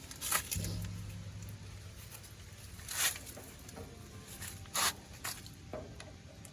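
Hand grease gun being worked on the grease fittings of a newly fitted PTO overrun clutch: a few short, sharp clicks and squelches, the loudest about three seconds and five seconds in. A low hum sounds for about a second near the start.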